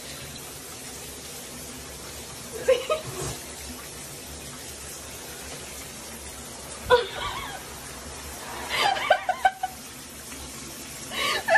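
Shower water running steadily, with a person laughing softly several times over it.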